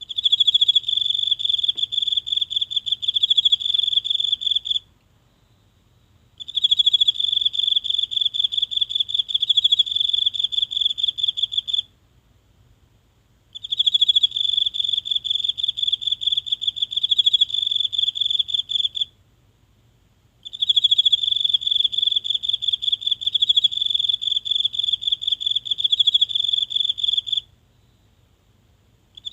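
A single insect singing close to the microphone: a high, rapidly pulsed trill in long bouts of about five to seven seconds, broken by short pauses of a second or two, four bouts in all with a fifth starting at the very end.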